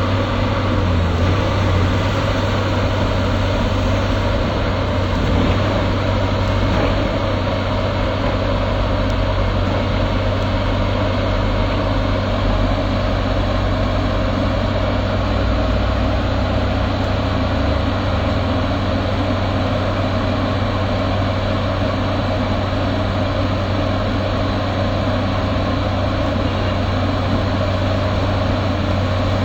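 Excavator engine running steadily with a constant low hum, no change in pace.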